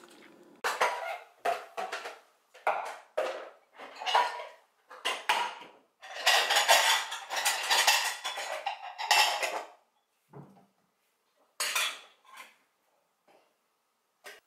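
Dishes and cutlery clattering and scraping in a stainless-steel kitchen sink as they are washed by hand, in a string of short bursts with a longer busy stretch about six seconds in, thinning out near the end.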